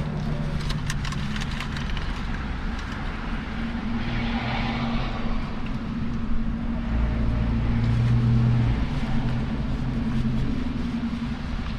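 Road traffic passing the parked car: a steady vehicle engine hum that swells loudest about eight seconds in, with a few light clicks about a second in.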